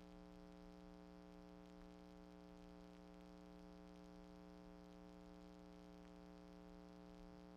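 Near silence with a faint, steady low hum made of several held tones.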